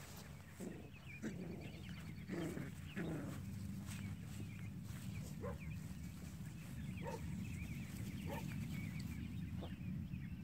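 Standard Poodle puppies play-fighting, letting out short, squeaky yips and whines: a cluster of them in the first few seconds, then single ones now and then.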